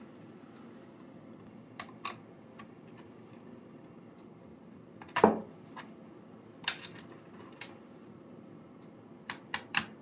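Scattered small clicks and taps of a screwdriver and loose screws against a laptop's plastic bottom cover, over a low steady hiss. The loudest knock comes about five seconds in, and three quick clicks follow near the end.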